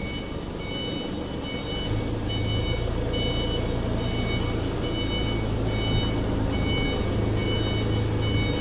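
Factory machinery running with a steady low hum that swells in about two seconds in, under a short high electronic beep repeating about twice a second.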